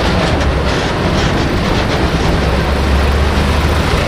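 Engines of WWII military vehicles, a large army truck and Willys jeeps, running in a low steady rumble as they drive slowly past close by.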